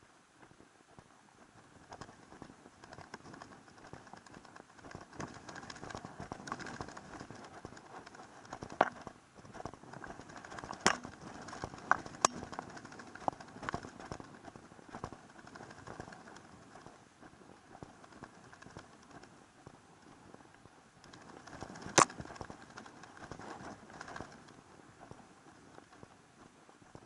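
Footsteps of a hiker walking steadily along a dirt trail, with a few sharp clicks scattered through, the loudest one about four-fifths of the way in.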